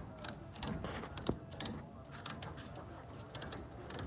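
Scattered light clicks and taps at an irregular pace, with one sharper knock about a second in, over low background noise.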